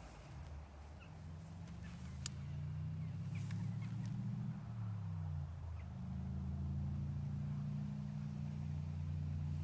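Low, steady engine drone of a motor vehicle, swelling in level over the first few seconds. Its pitch drops and recovers about halfway through, as at a gear change, then holds steady. A single sharp click comes a little after two seconds in.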